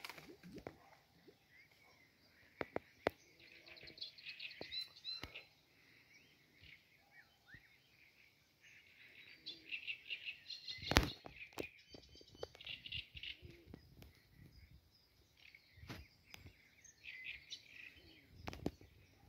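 Small songbirds chirping and trilling, with scattered sharp clicks and knocks, the loudest about eleven seconds in.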